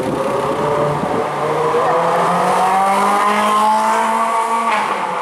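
Ferrari 458 Speciale's naturally aspirated V8 accelerating hard, its pitch climbing steadily through one gear for about four seconds, then dropping sharply at an upshift near the end.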